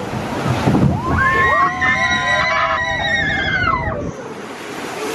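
Water rushing steadily around a ride boat, with several drawn-out voices sliding up and down in pitch over it from about a second in. The rushing stops abruptly about four seconds in.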